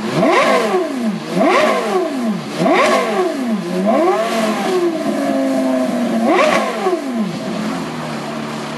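Porsche Carrera GT's naturally aspirated 5.7-litre V10 being revved hard while standing still: about five quick throttle blips, each rising and falling sharply, one held for a second or so before the last. It then drops back to a steady idle near the end.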